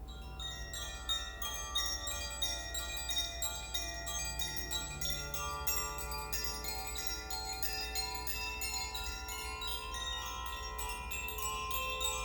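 Koshi chimes swung so that the clapper strikes the tuned rods quickly and irregularly. The result is a dense, tinkling shimmer of overlapping bell-like tones that ring on with rich overtones. The strikes begin about half a second in and carry on throughout.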